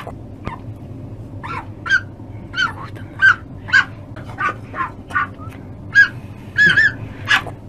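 Fennec fox giving a rapid series of short, high-pitched yips, about two a second in an uneven rhythm.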